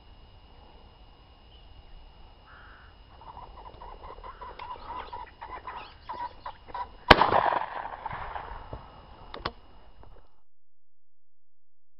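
A cock pheasant cackling as it flushes from the hedge, then a single loud shotgun shot from a side-by-side about seven seconds in, followed by a much quieter crack about two seconds later. The sound cuts off abruptly near the end.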